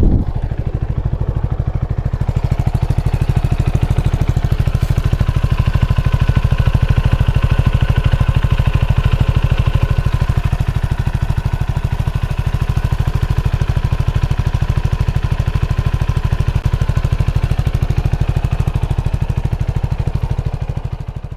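CFMoto NK300's single-cylinder engine idling steadily just after a cold start, with an even, rapid exhaust pulse.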